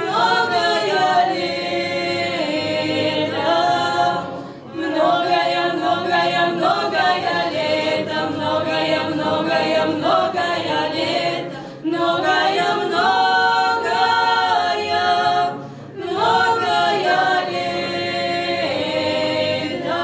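Female vocal trio singing a cappella in harmony. The song goes in long phrases with three short breaks between them.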